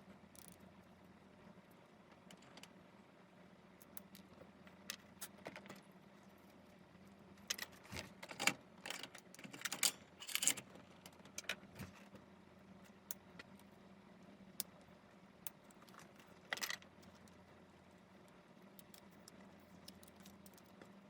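Light clicks and rattles of small hard objects being handled, bunched in a busy stretch around the middle with a few scattered ones elsewhere, over a faint steady hum.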